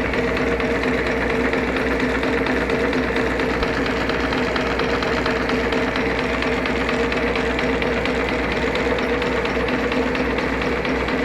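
WMW GFL 5000 thread milling machine running under power: a steady machine hum from its drive motor and gearing, unchanging throughout.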